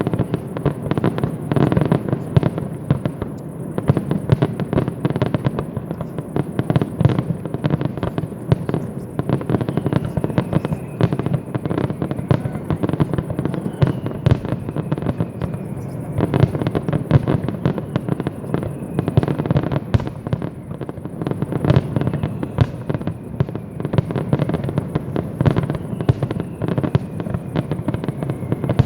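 Fireworks display: a dense, continuous run of bangs and crackles from shells bursting, with faint falling whistles now and then.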